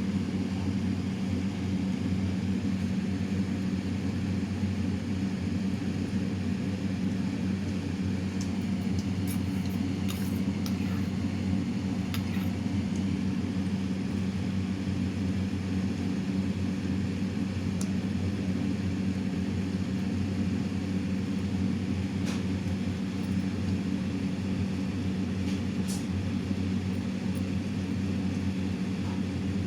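A steady low electrical hum, even and unchanging, with a few faint clicks.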